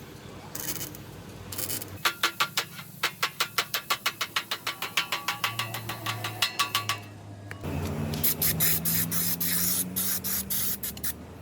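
Quick back-and-forth scraping or rubbing strokes, about seven a second, last for about five seconds. A steady spraying hiss starts about eight seconds in.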